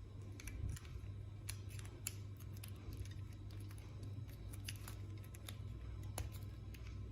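Plastic Rubik's Cube pieces clicking as an edge piece is handled and pushed into the partly rebuilt cube: a run of small, irregular clicks.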